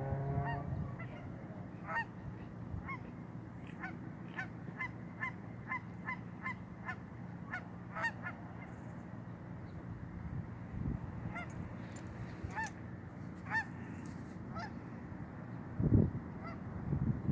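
Geese honking: many short calls in quick succession, thinning out in the middle and ending a few seconds before the end. Near the end come two loud, low thumps.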